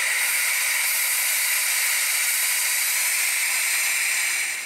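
Pneumatic vacuum brake bleeder hissing steadily as compressed air runs through it, sucking brake fluid and air out through the caliper's bleeder to bleed the brake lines. The hiss cuts off suddenly near the end.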